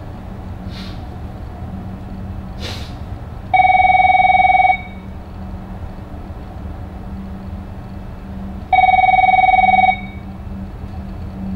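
Office desk telephone giving an electronic ring twice, each ring just over a second long and about five seconds apart, with the handset left on the cradle.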